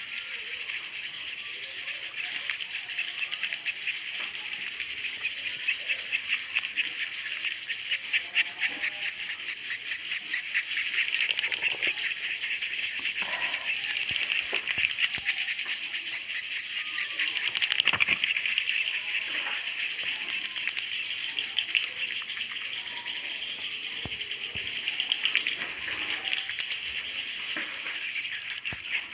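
Roosting ('inap') calls of edible-nest swiftlets recorded inside a swiftlet house: many birds twittering in a dense, continuous high chorus, with a fast repeated trill at the start and again near the end.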